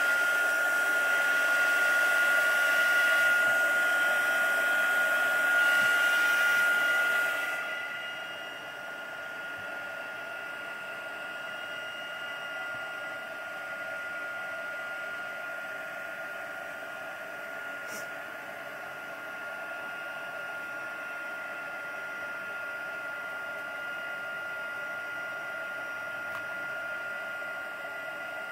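Handheld electric hot-air dryer blowing on wet watercolor paint, a steady motor whine over a rush of air. About seven seconds in the air noise drops and it runs on quieter, with the motor's pitch unchanged.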